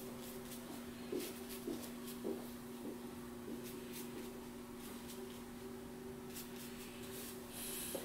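Soft, faint strokes of a Chinese ink brush on paper, over a low steady hum.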